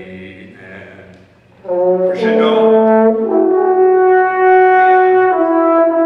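Wind band in rehearsal, brass to the fore, playing a slow chorale-like passage: a held chord dies away about a second in, then after a short pause the band comes back in loud with sustained chords, the harmony shifting every second or so.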